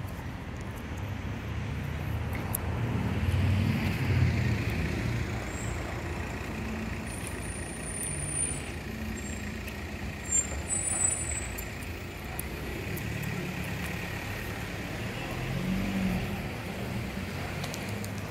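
Road traffic with heavy vehicles passing: a low engine rumble that swells twice, with brief high squeaks partway through.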